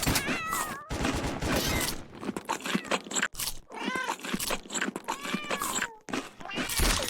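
Cats meowing, a few separate meows with rustling and knocks between them.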